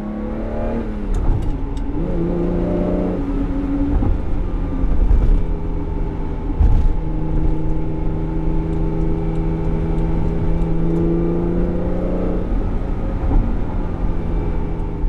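1994 Ferrari 512TR's 5-litre flat-12 engine pulling in second gear, heard loud from inside the cabin. The engine note drops in pitch over the first couple of seconds, then holds a steady pitch for the rest of the time.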